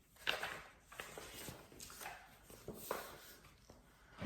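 Soft paper rustling and handling noise from a book being opened and its pages turned, in several brief separate rustles.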